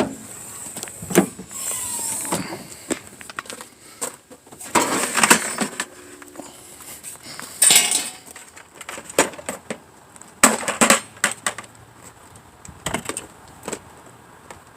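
Irregular knocks, clatters and rustling from things being handled and set down, with a few sharp clicks.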